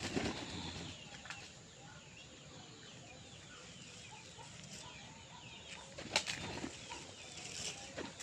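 A flock of domestic pigeons feeding, with wings flapping and a few sharp taps, the loudest about six seconds in, over many quick, high bird chirps throughout.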